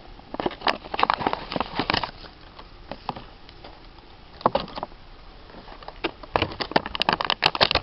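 Camcorder box packaging being handled as the contents are taken out: bursts of crackling and clicking in several clusters, with quieter gaps between, busiest near the end.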